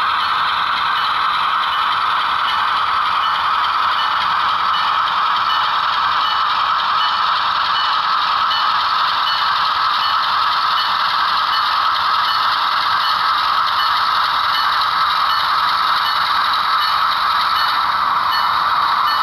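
HO scale model freight train, an Athearn Genesis GE ES44AC locomotive pulling dump cars and a gondola, running slowly along the track with a steady rattle of wheels on rail and light clicks repeating about once a second.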